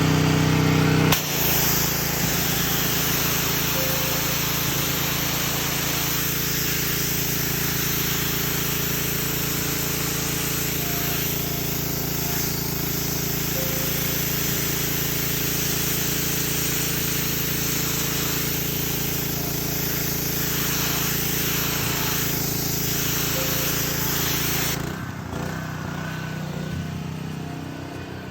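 Small petrol engine running steadily at a constant speed, with a loud hiss over it throughout; the sound drops back to a lower level about 25 seconds in.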